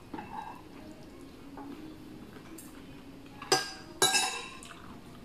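A metal spoon clinks twice against a dish, about half a second apart, near the end. Faint eating sounds come before the clinks.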